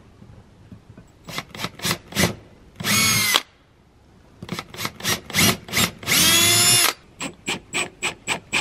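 Cordless drill drilling into a pine batten and then driving a screw into it. The motor runs in short trigger bursts and two longer steady runs, about three seconds in and about six seconds in. Near the end comes a quick string of short pulses.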